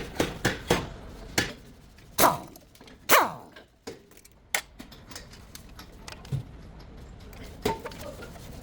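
Sharp metal clinks and knocks of tools and brake parts being handled, with two louder sounds about two and three seconds in that fall in pitch.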